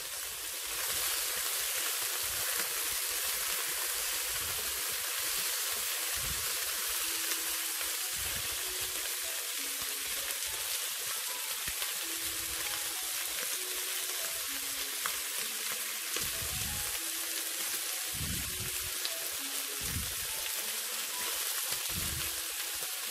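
Chicken wings sizzling steadily in hot oil in a frying pan as they brown and are turned over with chopsticks. The sizzle strengthens about half a second in.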